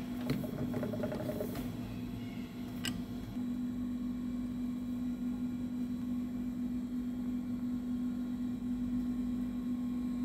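Steady low hum of workshop machinery, with a few light clicks in the first three seconds.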